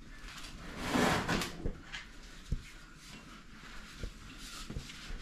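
Handling noise while a part is carried and wiped: a brief rustling hiss about a second in, then a few light knocks and clicks.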